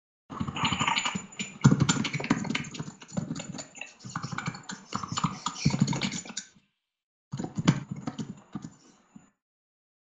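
Computer keyboard typing picked up by an open voice-chat microphone: rapid clatters of key clicks in two runs, a short pause between them, stopping a little after nine seconds.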